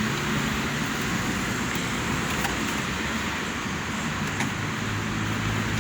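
Steady rain falling, an even hiss, with a couple of faint ticks.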